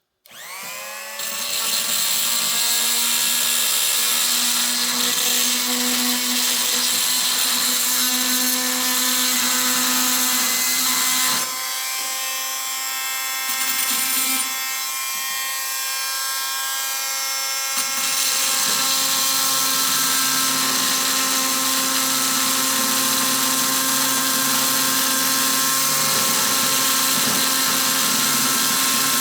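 Chicago Electric oscillating multi-tool switched on, winding up to speed in about a second, then running with a steady high whine while the blade works against a screw in a board. It only makes a little mark and doesn't cut through. For several seconds about halfway through, the sound drops a little and changes before the steady whine returns.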